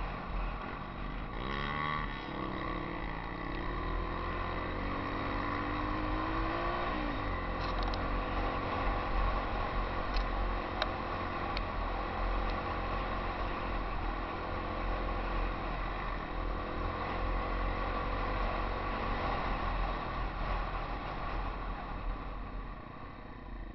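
Yamaha XT 250's single-cylinder four-stroke engine running on a dirt trail, its revs rising and falling through the first several seconds and then holding steady, with wind rumble on the microphone. The engine eases off near the end.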